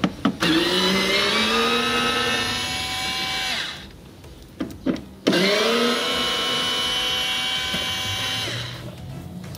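Tacklife cordless electric screwdriver running twice, for about three seconds each time, backing Torx T20 screws out of the front wheel-well liner. Each whine rises quickly as the motor spins up and then holds steady. A couple of light clicks come between the two runs.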